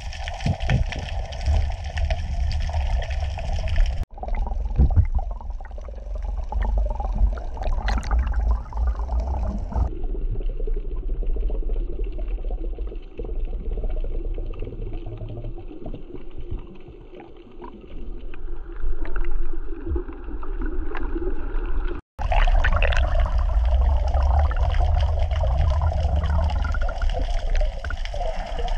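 Underwater noise of water moving and gurgling around a camera held by a snorkeler: a deep rumble with splashy, bubbling sounds. It cuts out abruptly about four seconds in and again around 22 seconds, and it is duller and more muffled between about 10 and 22 seconds.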